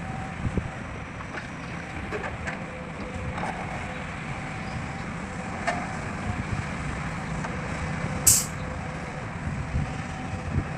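Heavy diesel machinery running steadily at a work site, typical of an excavator loading a dump truck, with scattered light knocks. About eight seconds in comes one short, sharp hiss.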